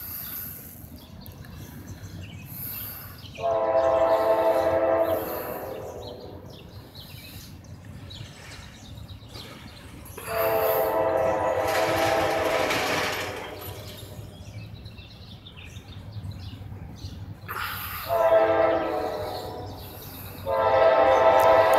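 Norfolk Southern diesel locomotive's air horn sounding two long blasts, a short one, then a long one that runs on past the end: the long-long-short-long warning for a grade crossing. Under the horn, the low rumble of the approaching train.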